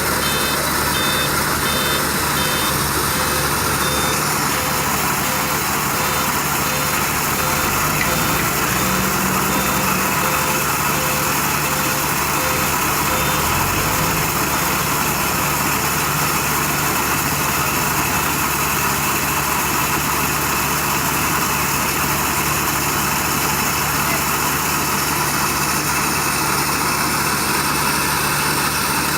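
Diesel engines of heavy construction vehicles running steadily, with a reversing alarm beeping in an even on-off rhythm through about the first half, then stopping.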